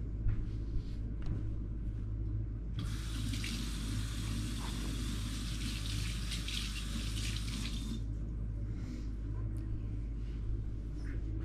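Kitchen sink faucet turned on and running for about five seconds, a steady splashing hiss that starts and stops suddenly, over a low steady room hum.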